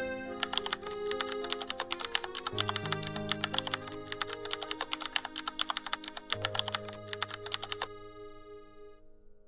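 Rapid keyboard-typing clicks over background music with sustained notes. The typing stops about eight seconds in, leaving the music, which then gets quieter.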